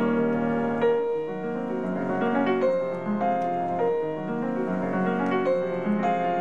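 Classical music with piano: a slow passage of held notes over chords.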